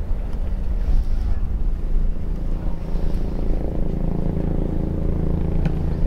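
A steady low mechanical hum with even pitched lines, like a running engine, with a single sharp knock near the end.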